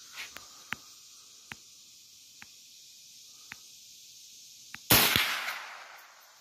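.22 rifle fired once about five seconds in: a single sharp crack with a fading echo. A few faint clicks come before the shot.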